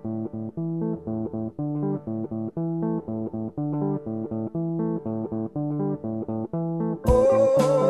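Background music: a plucked guitar figure repeating over a bass line, with drums and a held lead guitar note coming in near the end.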